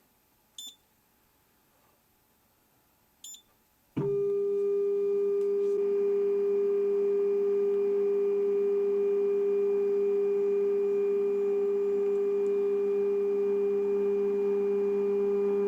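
Two short electronic beeps, then a loud steady pitched hum with overtones that starts abruptly about four seconds in and holds evenly to the end.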